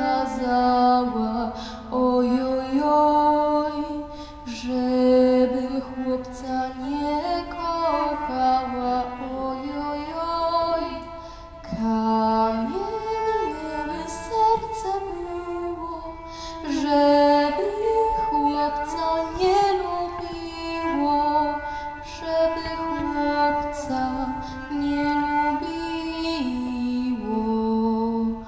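A young woman singing a slow Polish folk song solo, with long held notes that step and glide from one pitch to the next.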